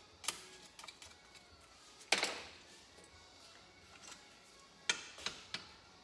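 Scattered clicks and clinks of a wrench and metal engine parts being handled during hand teardown of an ATV engine. A louder knock comes about two seconds in and a few quick clicks near the end.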